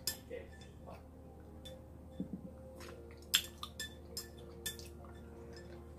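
Cutlery clinking against a dish while eating: scattered light taps, a few louder ones a little past the middle.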